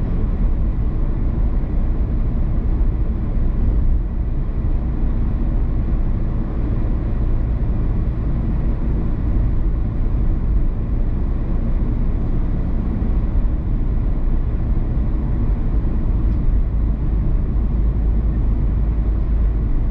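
Car driving at a steady speed: a continuous deep rumble of road and tyre noise that holds even throughout.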